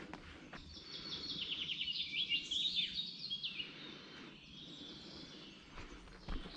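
A songbird sings a fast trilled phrase of rapid, high repeated notes lasting about three seconds, followed by fainter bird calls.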